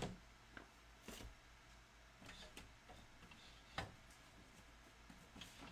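Quiet room with a few scattered light clicks and taps, the sharpest about four seconds in.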